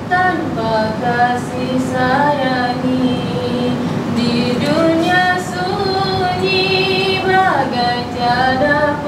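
A girl singing a slow Malay song about orphans into a microphone, holding long notes of a second or more and sliding between them, with a long falling slide near the end.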